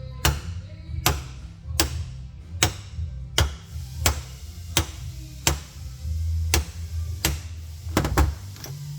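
Hammer blows on metal, evenly paced at about one every three-quarters of a second, about a dozen in all, over background music.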